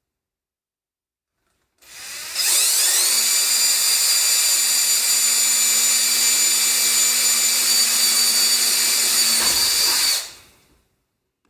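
Cordless drill driving a 1/8 inch bit through a paper template into the controller box panel. It starts about two seconds in, speeds up to a steady high whine, runs for about eight seconds and winds down near the end.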